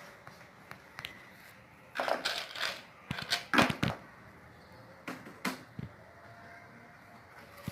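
Handling noises: a few sharp clicks, then two loud clusters of crinkling, crackling bursts, then a few more clicks.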